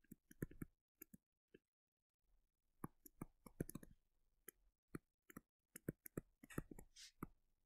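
Near silence with faint, irregular clicks and taps: a pen or stylus tapping and writing on a touchscreen or tablet as handwriting is put down.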